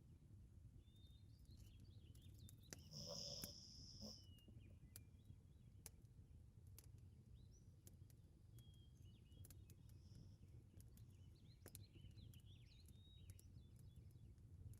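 Near silence: a faint steady low rumble of room ambience with scattered soft clicks and faint short high chirps, one slightly clearer chirp about three seconds in.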